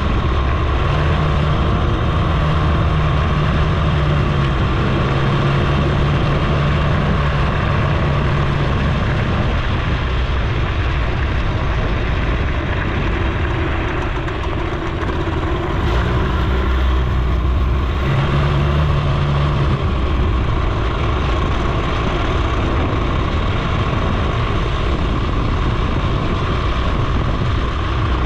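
A Suzuki FZ 50 moped's small two-stroke engine runs on the move, over a steady rush of wind and road noise. It eases off briefly about halfway through and picks up again.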